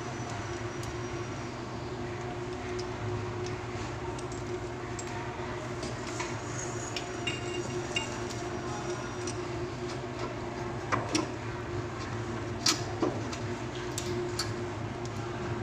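Small clicks, clinks and taps of faucet fittings and parts being handled and fitted together, with a handful of sharper clicks in the second half, over a steady low hum.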